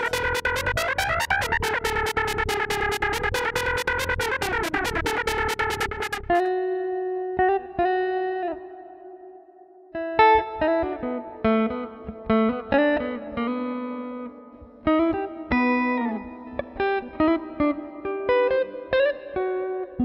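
Background music: a fast, even pulsing section over a held chord that cuts off about six seconds in, followed by a slower melody of single plucked notes, guitar-like.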